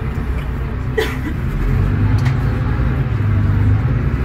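Mercedes-Benz OM936LA inline-six diesel of an O500U city bus pulling under load, heard from inside the passenger cabin, its note growing stronger about a second and a half in. A brief squeak about a second in.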